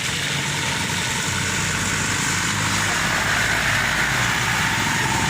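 Road traffic stuck in a jam: vehicle engines idling and creeping along, a steady low engine hum under an even hiss.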